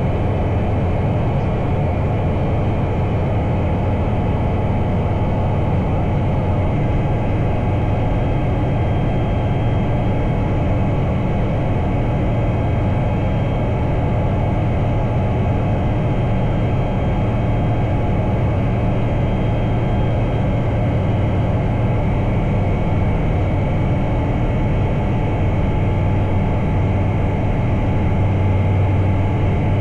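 Bristell Classic light aircraft's piston engine and propeller droning steadily in cruise flight.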